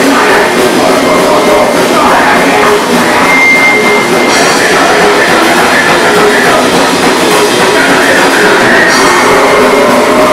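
Live punk rock band playing loud: electric guitar, bass guitar and drum kit going without a break.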